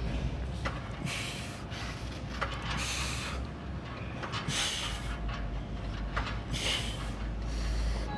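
Hissing breaths, one about every one and a half to two seconds, over a low steady hum.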